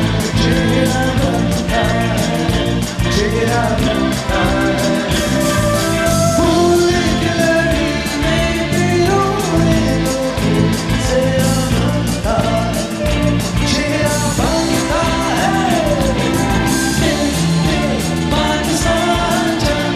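Background music with a sung vocal over guitar and a steady beat.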